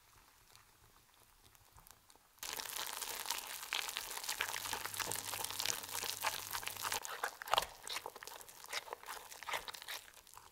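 Wire whisk beating eggs into flour in a glass bowl. It is faint at first, then about two seconds in it becomes a much louder, fast, dense run of wet clicking and scraping strokes as the mix turns into a thick batter.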